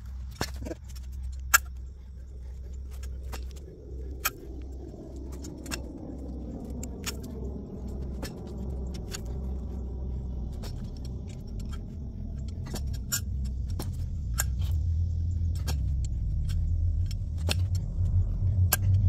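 A vehicle's low rumble, passing by with a pitch that dips and rises again in the middle and growing louder toward the end, with scattered sharp clicks and taps.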